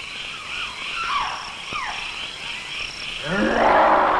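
A steady pulsing chirping of insects with a few short falling whistled calls. About three seconds in, a loud sustained low call with many overtones swells in and holds.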